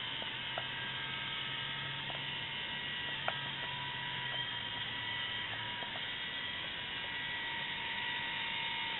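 Small hobby servo motors of a toy car whirring with a steady buzz, with a few faint clicks; the lower part of the hum stops about six seconds in.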